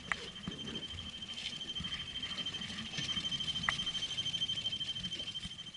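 Spinning reel being wound in, a steady high-pitched whine with a quick regular ripple and a few light clicks. The whine stops suddenly at the end.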